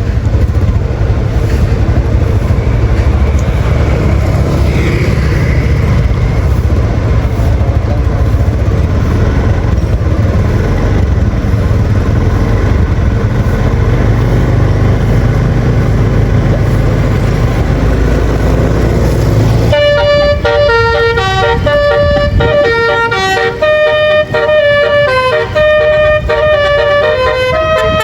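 Heavy engine and road rumble, then about two-thirds of the way through a bus's 'basuri' telolet horn starts playing a quick melody of many stepping notes that runs on to the end.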